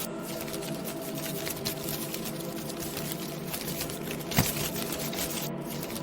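Halloween ambience soundscape: a dense, steady crackle over a low layered hum, with one sharp click about four and a half seconds in.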